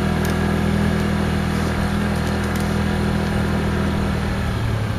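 A vehicle's engine running slowly, a steady low hum; its note drops a little about four and a half seconds in.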